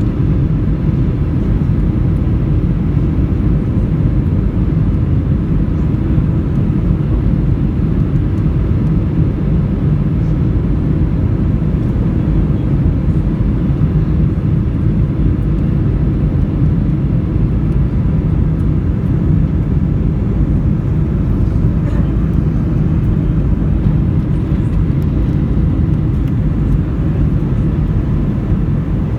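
Steady low rumble of a Boeing 737-800's CFM56 jet engines and rushing airflow heard inside the passenger cabin during final approach and landing, with flaps extended.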